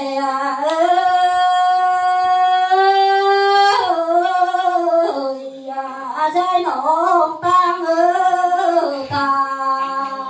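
A solo voice singing a slow lượn folk melody with long held notes that waver in pitch. The singing stops near the end.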